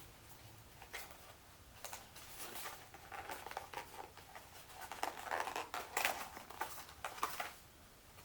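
Small product packaging being handled and opened by hand: irregular rustling, light scrapes and small clicks of cardboard and plastic, busiest in the second half.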